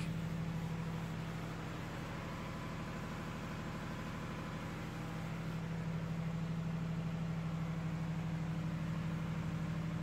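Steady low hum of running machinery with a fast, even pulse; no starter cranking is heard.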